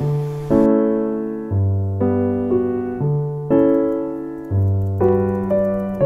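Background piano music: slow, gentle chords, each struck and left to fade, about two a second.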